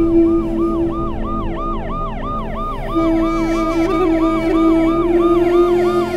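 Ambulance siren in a fast yelp, its pitch rising and falling about three times a second, over a steady held low tone.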